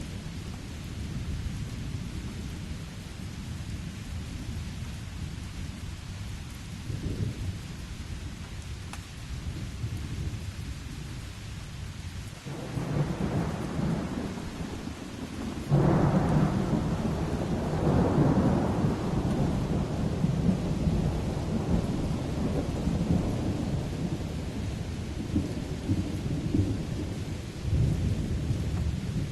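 Steady rain during a thunderstorm. Thunder starts rumbling about halfway through, breaks into a sudden louder roll a few seconds later that rumbles on for several seconds, and fainter rumbles follow near the end.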